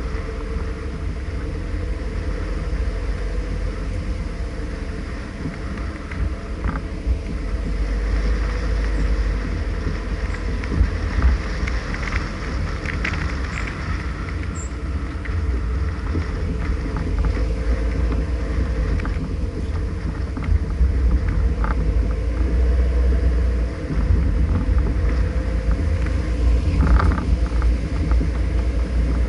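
A car driving slowly along a lane, heard from a camera on its bonnet: a steady engine and tyre rumble with a faint hum, and a few light clicks now and then.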